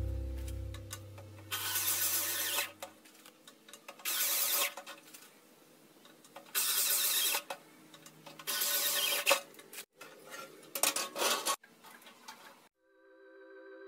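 Handheld corded electric drill run in short bursts against a steel frame: four runs of about a second each, then a few shorter ones. Guitar music fades out at the start and comes back near the end.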